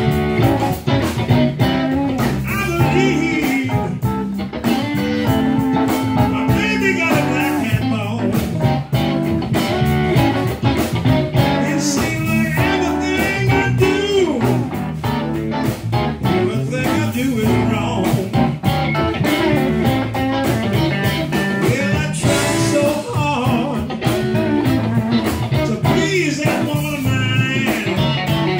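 Live blues band playing: electric guitars over a bass guitar and a steady beat, the lead guitar's notes bent and wavering with vibrato.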